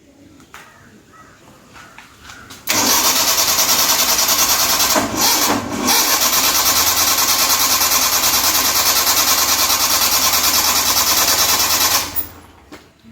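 Starter motor cranking the 1985 Maruti 800's 796 cc three-cylinder engine with an even pulsing of about five beats a second, stopping briefly once and cranking on for about nine seconds in all without the engine catching, then cut off. The car is hard to restart after being stopped.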